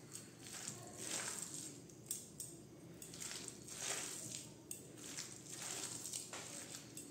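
A hand mixing and squeezing shredded cabbage with gram flour, rice flour and egg in a steel bowl, in repeated uneven strokes.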